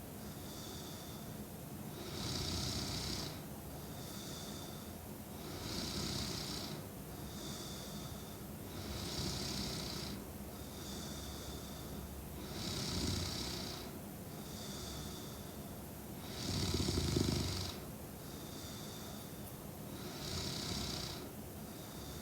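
A young woman snoring in her sleep, with a loud snoring breath about every three and a half seconds. Each is followed by a softer breath with a faint high whistle. The loudest snore comes about 17 seconds in.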